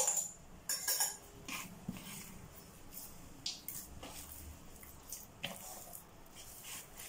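Hands kneading and pressing soft pizza dough in a plastic bowl: irregular soft taps and squishes of the dough and hand against the bowl, every second or so.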